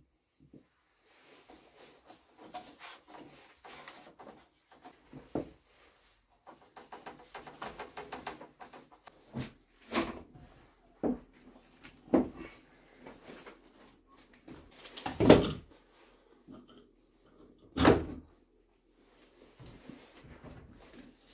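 Thin wooden laminating strips and tools handled on a workbench while a bent lamination is glued up: scattered light knocks, clicks and scrapes, with a few heavier wooden thumps, the loudest about fifteen and eighteen seconds in.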